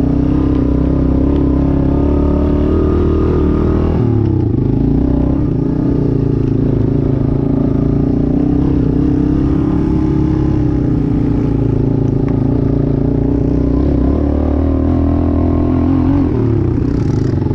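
ATV engine running hard under load while climbing a loose, rocky slope, steady throughout, its pitch dipping briefly about four seconds in and again near the end.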